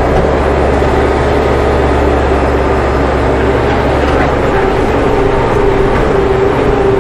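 Mahindra 83-horsepower diesel tractor engine working hard under load, pulling a nine-shank chisel plow through compacted ground, heard from inside the cab. A steady whine joins a little over halfway through.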